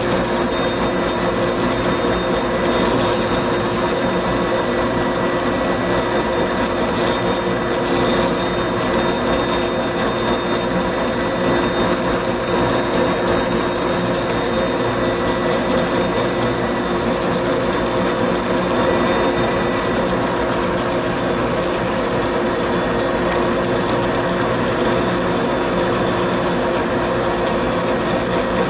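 A high-speed rotary tool spinning a stack of 80-grade 3M abrasive wheels against a briar pipe bowl, texturing the wood, with a dust collector running at the same time. It makes a loud, steady whine and rush.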